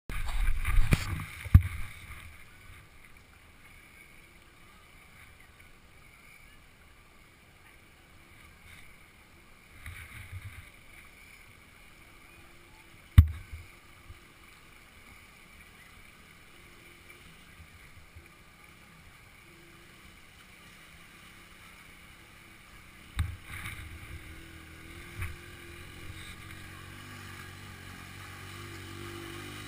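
Quiet riverside background broken by a few sharp knocks. In the last few seconds the single-cylinder engine of a Honda TRX 125 ATV grows steadily louder as it approaches through the river.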